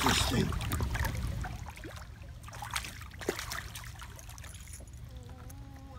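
A hooked crappie splashing and thrashing at the water surface as it is reeled up beside a small boat, loudest in the first second and then fading, with a couple of light knocks in the middle.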